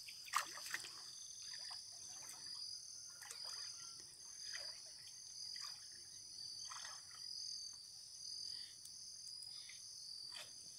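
A faint, steady chorus of calling frogs and insects, with a fast pulsing trill running throughout. Soft splashes of legs wading through shallow water come every second or two.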